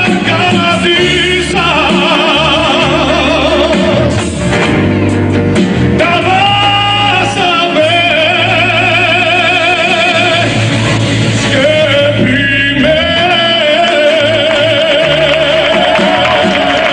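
A man singing a gospel song into a microphone over amplified backing music, holding long notes with a wide, even vibrato across several phrases, with a steady bass line beneath.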